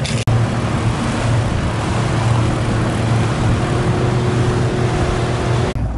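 Boat motor running steadily under way: a low engine hum under a continuous rush of noise.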